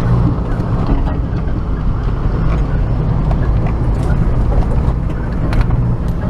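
Opel Frontera A Sport driving off-road: a steady low engine drone with a noisy haze of running noise, and scattered sharp knocks and rattles.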